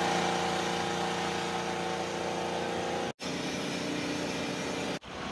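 Steady hum of a running engine or motor, an even set of low tones over a noisy haze; it drops out briefly twice where the footage cuts.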